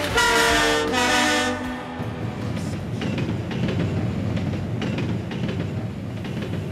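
A horn-like chord sounds for about a second and a half, then gives way to a steady rumbling noise with scattered faint clicks.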